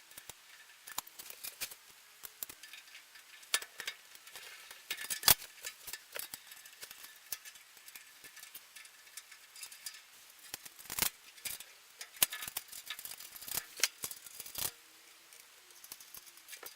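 Irregular metallic clicks, taps and knocks of nuts and bolts being fitted and lightly done up, with a few louder knocks of metal parts against each other.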